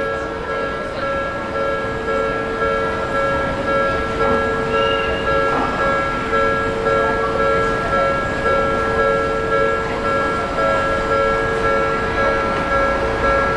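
Electronic alarm of a Japanese railway level crossing, ringing with a steady, regularly pulsing two-tone sound. A low rumble underneath grows a little toward the end.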